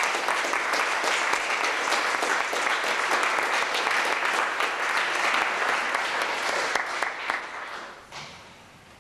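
Large audience applauding, a dense patter of many hands clapping that thins out and dies away about eight seconds in.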